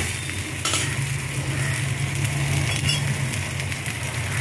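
Dosai sizzling on a hot iron tawa over a steady low hum, with a few faint clicks of a steel spatula or spoon.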